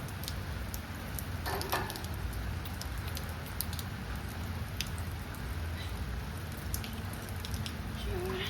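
Steady rain, with scattered drops ticking sharply on hard surfaces. A short pitched sound begins just before the end.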